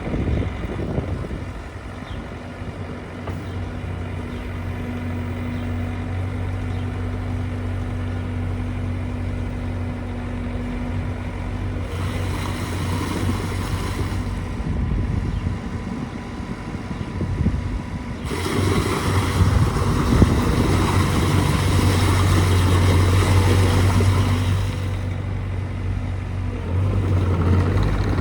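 Bobcat T450 compact track loader's diesel engine running steadily. It gets louder briefly about twelve seconds in, louder again for several seconds from about eighteen seconds, and once more near the end.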